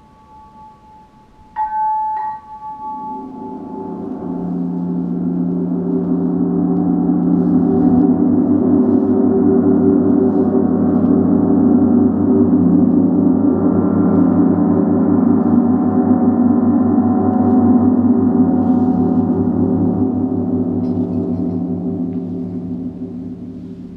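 Giant suspended gong played continuously: its sound swells up over several seconds, holds loud for a long stretch, and dies down near the end. Just before the swell, about two seconds in, there are two short bright ringing strikes.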